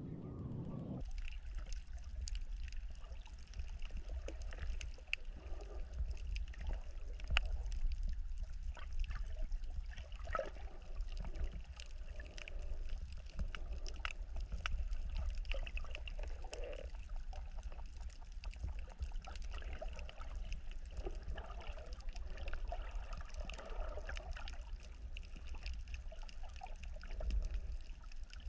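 Water sloshing and trickling, with many small irregular splashes and a steady low rumble underneath.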